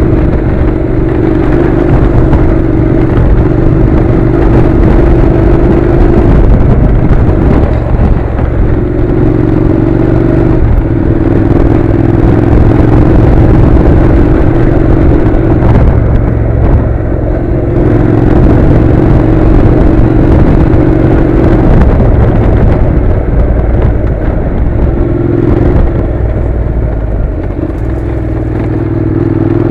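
Honda NC700's parallel-twin engine running while the motorcycle rides a dirt track, its note coming on in stretches of a few seconds and dropping back between them as the throttle is worked, over steady rumble and road noise.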